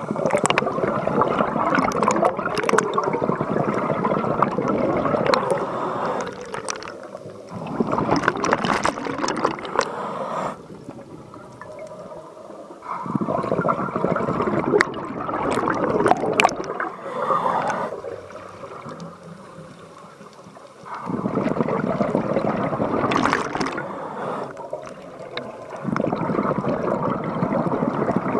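Scuba diver's exhaled air bubbling from a regulator, heard underwater: about five bursts of bubbling, each lasting a few seconds, with quieter pauses between them as the diver breathes in.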